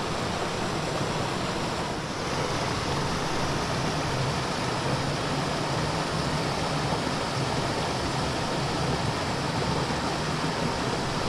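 Steady rushing of a mountain stream's water flowing over rocks.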